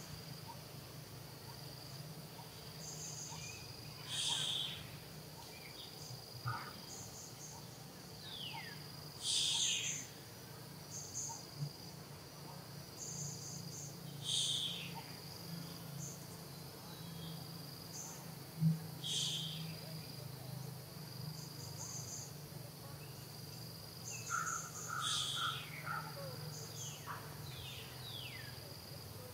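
Outdoor nature ambience: a steady high insect drone, with a bird call repeating about every five seconds and other birds chirping and giving short falling whistles, over a faint low hum.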